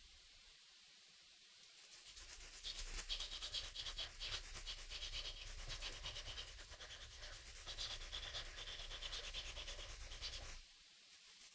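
A knife handle being sanded by hand: rapid, fine scratchy strokes that start about two seconds in and stop about a second before the end.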